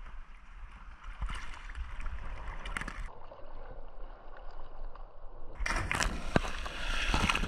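Seawater sloshing and lapping around a bodyboarder at the surface. It goes muffled for a couple of seconds, as when the microphone dips under water, then comes back louder with splashing near the end.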